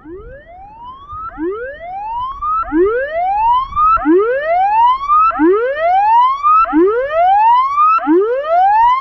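Outdoor tsunami warning siren sounding its alert tone during a test: a repeating rising whoop, seven sweeps each climbing in pitch, about one every second and a third. It starts quiet and grows to full loudness within the first few seconds.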